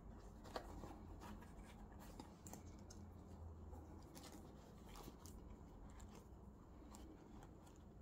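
Faint rustling and scattered light clicks of a leather gear-lever gaiter and a plastic gear knob being handled and fitted together, over a low steady hum.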